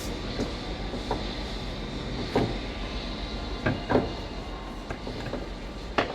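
A few scattered clunks and clicks of tools and car parts being handled during an alternator removal, over a steady low background noise. The loudest knocks come about two and a half seconds in, a close pair near four seconds, and one more near the end.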